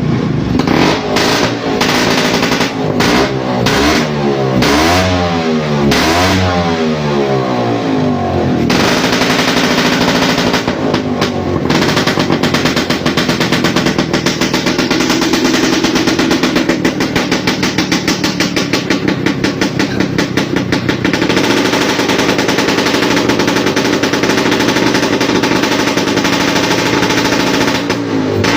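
Vespa scooter engine revved up and down over and over for about the first nine seconds, then held at steady high revs with a rapid, rattling pulse.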